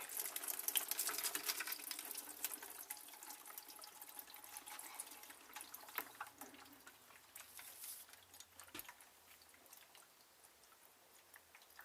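Insulating oil pouring out of a tipped X-ray head into a tub: a splashing stream that is loudest at first and slowly thins to a trickle and drips.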